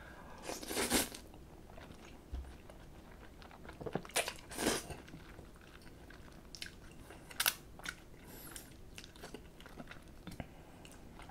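Cold buckwheat noodles of spicy bibim naengmyeon being slurped and chewed close to a microphone: a few loud slurps, about a second in, around four to five seconds and again near seven and a half seconds, with softer chewing between.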